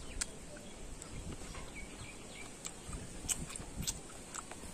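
Close-up crunching and chewing of a bite of raw green mango, sharp crackly clicks scattered through. A few faint bird chirps in the background.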